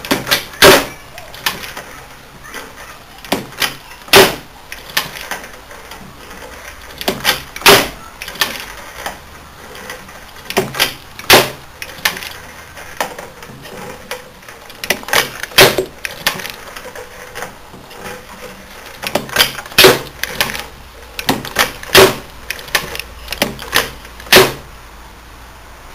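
Hexagonal turret head of a capstan lathe being worked through its mechanism by hand: a series of sharp metal clunks and clicks a second or a few seconds apart, sometimes two or three close together, as it slides and indexes round into position. The freshly reassembled mechanism is working well.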